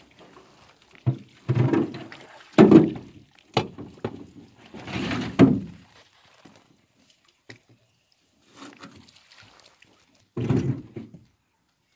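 Irregular thumps and knocks on a small boat while a fishing net is hauled in over the side, loudest about three and five seconds in, with a quiet stretch before a last thud near the end.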